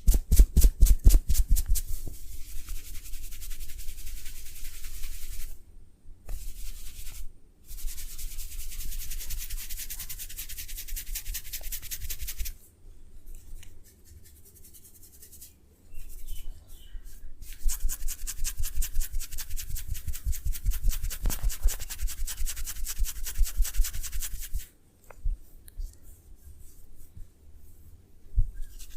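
Massage hand strokes: fast, rhythmic rubbing by hands on the body, several strokes a second, in runs of a few seconds with short pauses and a quieter stretch in the middle. Each stroke has a scratchy rasp and a soft low thud.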